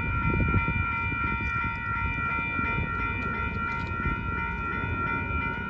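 Railroad crossing warning bell ringing steadily as the crossing activates, signalling an approaching train while the gates come down. A low rumbling noise sits underneath.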